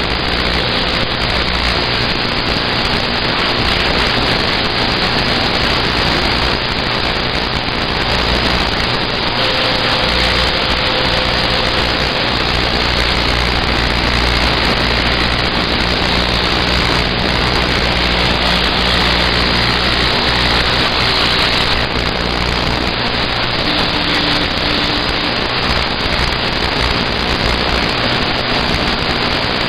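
Steady in-cab vehicle noise while driving: a constant rush of road noise over a low engine drone, with no changes.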